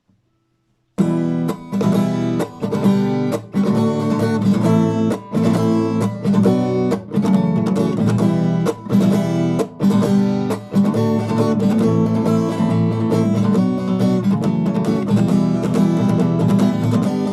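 Acoustic guitar strumming chords in a steady rhythm, starting about a second in after a brief silence.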